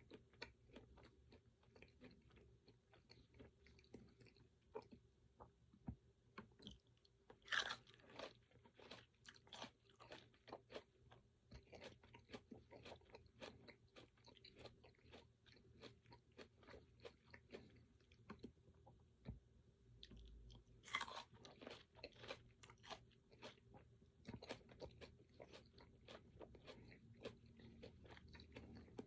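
Quiet chewing and crunching of fruit and pecans, with many small mouth clicks and two louder crunchy bites, one about 7 seconds in and one about 21 seconds in.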